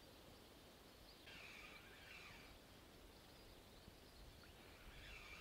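Near silence: faint open-air ambience with two short spells of faint bird twittering, one about a second in and one near the end.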